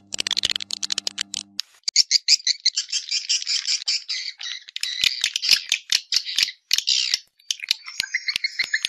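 Swiftlet lure recording: a flock of swiftlets twittering in dense, rapid chirps and clicks. A low steady hum sits under the first second and a half.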